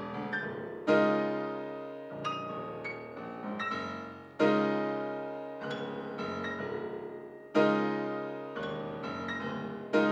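Steinway concert grand piano played solo: four loud chords struck roughly three seconds apart, each left to ring and fade while quieter, shorter notes are played over it.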